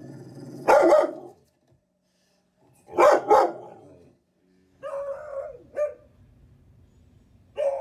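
A dog barking in separate bursts. One loud bark comes about a second in and two more come around three seconds. A couple of softer barks follow near five seconds, and another starts near the end.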